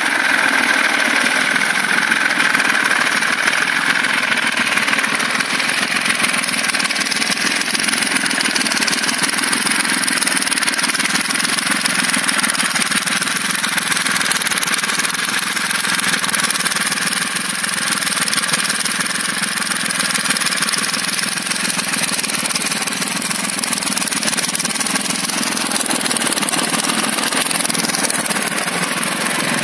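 Nuffield 3/42 tractor's three-cylinder diesel engine idling steadily. It is running too rich and hunting a little, the owner says for want of a vacuum adjustment on the injector pump.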